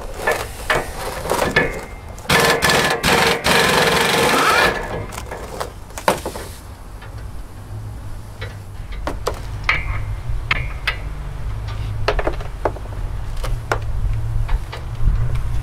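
An air impact wrench rattling in one long burst of about two seconds, about two seconds in, as bolts on a Land Rover Discovery 1's rear trailing arm are worked loose, with knocks before it. Afterwards come scattered metallic clinks of hand tools over a low steady hum that grows louder in the second half.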